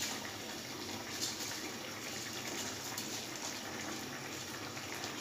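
Water boiling steadily in a pan as washed rice is poured in from a bowl, with a few faint clicks.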